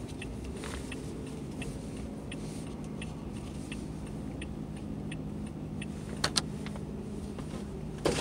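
A car cabin's steady engine and road noise as the car rolls slowly through a toll plaza. Faint ticks come about twice a second, with a sharp double click a little after six seconds in and a louder click near the end.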